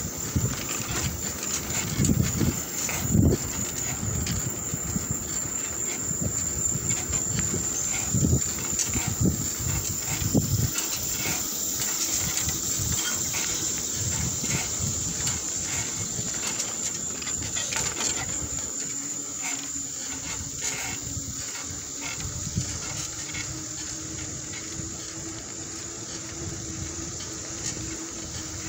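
Wheels rolling over rough asphalt: a steady rumble with a few sharp knocks from bumps in the road, a couple of seconds in and again around eight and ten seconds in.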